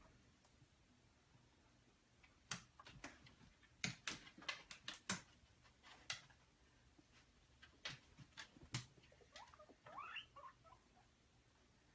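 Faint, irregular small clicks and taps, with a brief high wavering squeak about ten seconds in.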